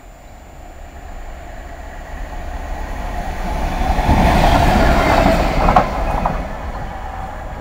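Freightliner Class 66 diesel locomotive running light engine, its two-stroke V12 engine and wheels growing louder as it approaches and passes, then fading as it moves away. Near the loudest point there are a few sharp clicks as the wheels cross rail joints.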